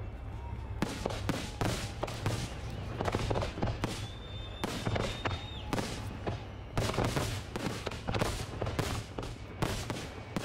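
Aerial fireworks shells bursting in quick succession: a dense run of bangs and crackles, several a second. A high steady whistle sounds about four seconds in for about a second and a half.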